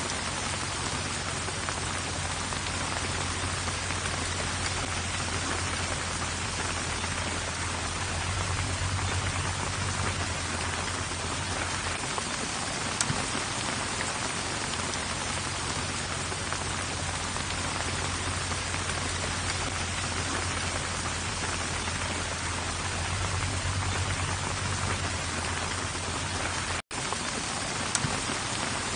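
Steady heavy rain with a low rumble of strong wind beneath it, the wind swelling twice, about a third of the way in and again near the end. The sound cuts out for an instant shortly before the end.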